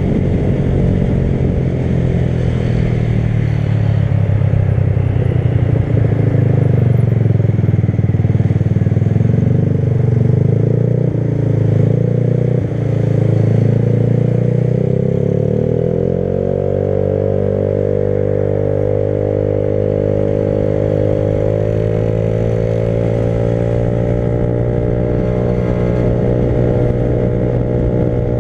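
Motorcycle engine running while riding, its pitch wavering with the throttle for the first half, then dropping and holding steady for the rest.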